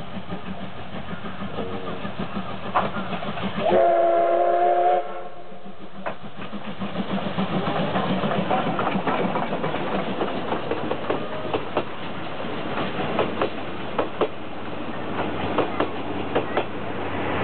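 C58 steam locomotive approaching and passing close by. Its steam whistle sounds once for a little over a second, about four seconds in, and is the loudest sound. The passenger coaches then roll past with a run of clicks from the wheels over the rail joints.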